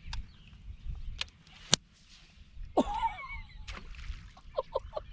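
A cast with a heavy Alabama rig: a sharp snap about two seconds in, the 16-pound fluorocarbon line breaking so that the rig flies off. A short rising-and-falling shout follows about a second later, then brief bursts of laughter over low wind rumble.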